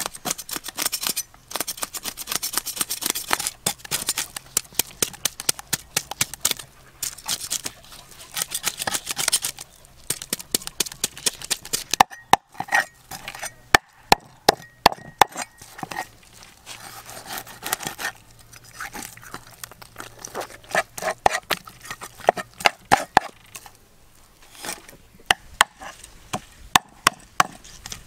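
Knife blade scraping the scales off a whole fish on a wooden cutting board. For about the first ten seconds it is fast, dense scraping strokes. After that come sharper, separate scrapes and knocks in short bunches.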